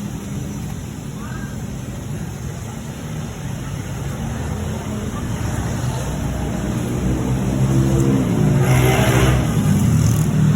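Motor vehicle engine running close by, rising in pitch and getting louder over the last few seconds as it speeds up or passes, with a brief louder rush of noise about nine seconds in.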